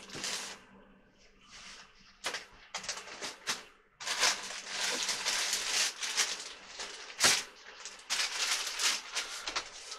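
Rustling and clattering of vegetables being handled and loaded into a slow cooker. A few sharp knocks come about two to three and a half seconds in, and a dense, uneven rustling runs from about four seconds in until near the end.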